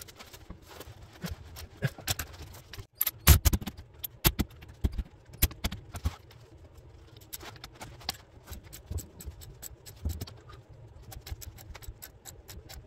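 Hand ratchet clicking in runs of quick metallic clicks, with clinks of the tools on metal, as driveshaft flange bolts are turned loose. The loudest clicks come a few seconds in.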